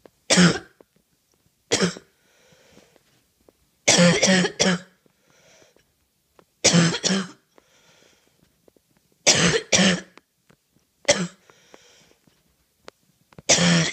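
A person in a coughing fit: harsh, barking coughs in bursts of one to three, coming about every two to three seconds, with a faint breath drawn in between.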